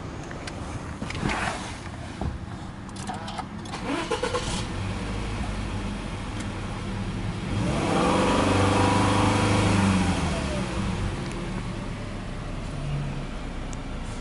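Subaru Legacy 2.5i's FB25 2.5-litre flat-four (boxer) engine being started, heard from inside the cabin. The starter cranks and the engine catches about four seconds in. About eight seconds in the revs rise to around 2,000 rpm for a couple of seconds, then fall back to a steady idle.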